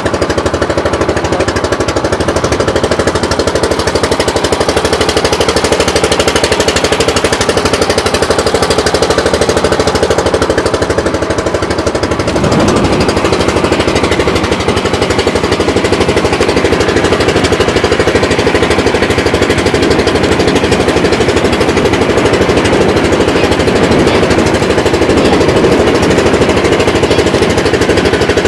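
Engine of an outrigger bangka boat running under way: a loud, rapid, steady pulsing that gets a little louder about halfway through.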